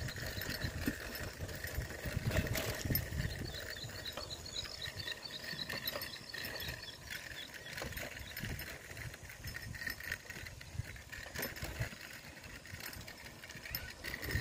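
Wind buffeting the microphone outdoors during a bicycle ride, an uneven low rumble that is strongest in the first few seconds. A few seconds in comes a rapid run of high chirps, about six a second, for roughly two and a half seconds.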